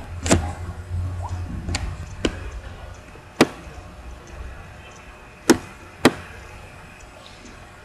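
A computer mouse clicking six times at irregular spacing over faint room noise: short, sharp clicks.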